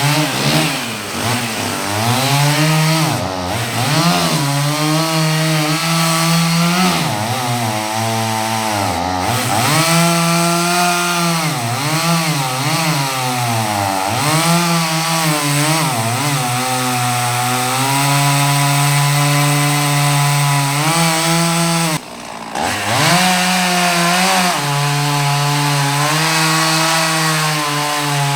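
Two-stroke chainsaw cutting into a poplar trunk. Its engine speed holds high and then sags repeatedly as the chain bogs in the cut, and it is briefly let off about three quarters of the way through.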